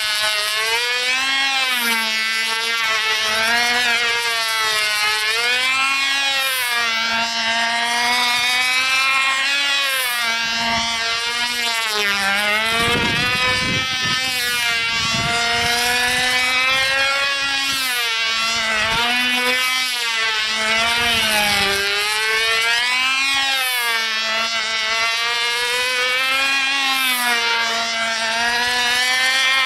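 Model airplane's Fox .36X glow engine running at high speed in flight, a buzzing tone whose pitch rises and falls about every two seconds as the plane circles.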